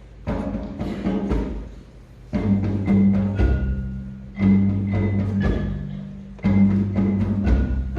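A school percussion ensemble playing. There is a quick run of drum and mallet strikes for about the first two seconds. Then come three long, ringing low notes about two seconds apart, each with high bell-like tones over it.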